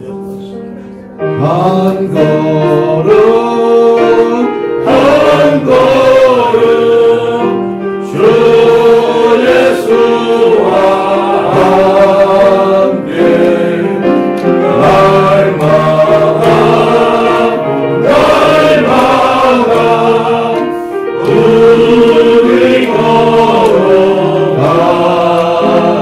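A group of voices singing a hymn together, phrase after phrase, with the singing picking up about a second in.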